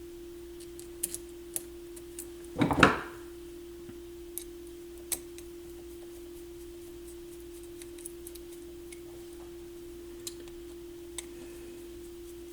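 Small clicks and handling noises from the receiver's power-switch assembly being fitted and worked by hand, with one louder short scrape about three seconds in, over a faint steady hum at one pitch.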